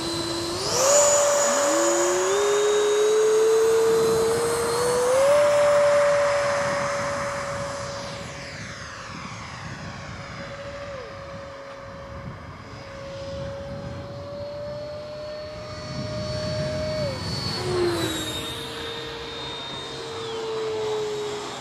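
Radio-controlled electric ducted fan jet, a 90 mm Freewing F-4 Phantom, throttling up for takeoff with a high whine that rises in pitch over the first few seconds, then holding a steady whine in flight. The sound fades midway, swells again, and the whine drops in pitch about three-quarters through as the jet passes.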